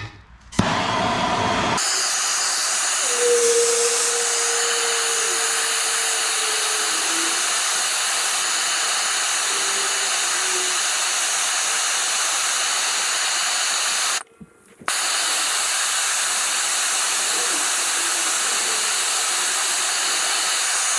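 MAPP gas torch flame burning with a steady hiss while it heats an aluminum rim to melt the repair rod into the crack. The hiss cuts out for about half a second roughly two-thirds of the way through, then carries on.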